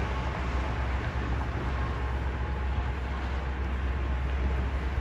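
Steady hiss and low rumble of highway traffic passing over the overpass.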